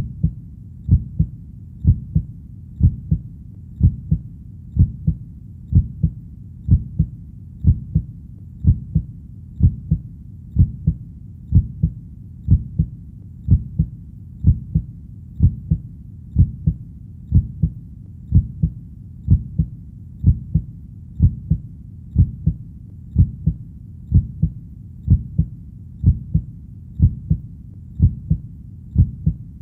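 Human heartbeat, a steady low lub-dub double beat at about one beat a second.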